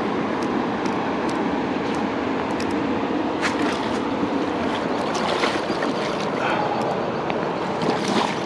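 Steady rush of river water flowing over a riffle, with a few short sharp sounds breaking through from about three and a half seconds in.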